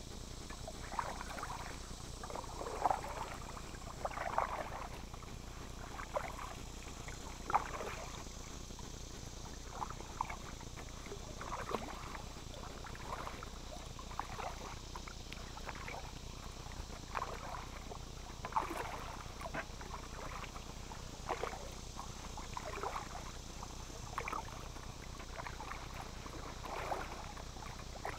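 Kayak paddle strokes in calm lake water: the blade dips in and lifts out with short splashes and drips, about one every second or two.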